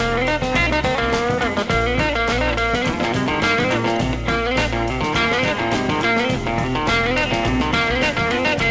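Instrumental 1960s soul-blues record: electric guitar playing melodic lines over electric bass and drums with a steady beat.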